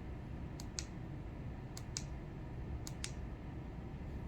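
Faint clicks of a button on a portable Bluetooth speaker being pressed, changing its RGB light mode. Three press-and-release pairs about a second apart.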